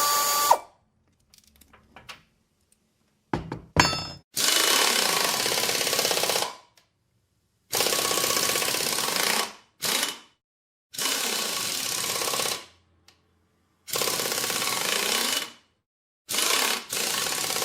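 Electric drill run in repeated bursts of about one and a half to two seconds, with short silent pauses between. Each burst starts abruptly and fades out at the end as the tool stops.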